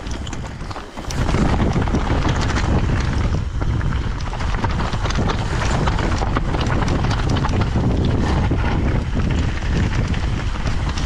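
Mountain bike riding down a rough trail: tyres rolling over stones and the bike rattling in quick irregular clatters, with wind buffeting the microphone. The noise dips briefly about a second in.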